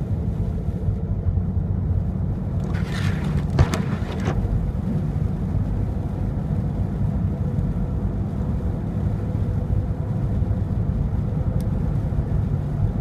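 Steady low rumble of a Land Rover driving, heard inside the cabin. A brief scraping hiss with a sharp click comes about three seconds in.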